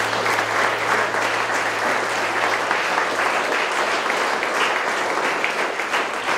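A small group of people applauding steadily, sustained hand-clapping after a closing prayer.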